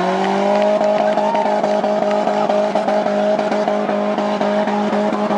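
Demolition derby compact car's engine held at steady high revs, one unchanging pitch with a light ticking about four times a second.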